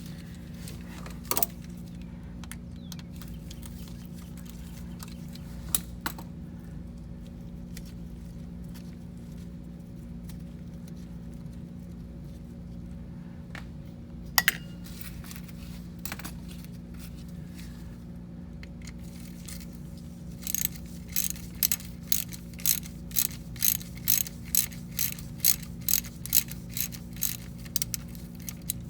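Hand ratchet wrench clicking in short, regular strokes, about two to three clicks a second from about twenty seconds in, backing a whole stud out of a Porsche 911SC's oil sump plate. Before that, a few single metal clicks over a steady low hum.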